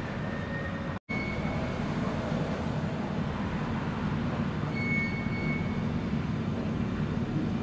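Steady low rumble of distant engines, with a brief break about a second in and a few faint short high-pitched tones near the start and about five seconds in.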